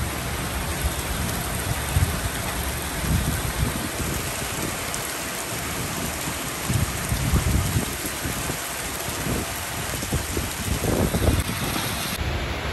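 Steady splashing hiss of water spraying and bubbling in aerated live bait tanks, with irregular low bumps and rumbles underneath.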